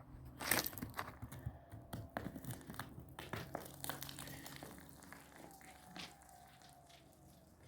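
Irregular crackling and rustling, densest over the first few seconds, then thinning out. In the second half a faint, drawn-out tone slowly falls in pitch.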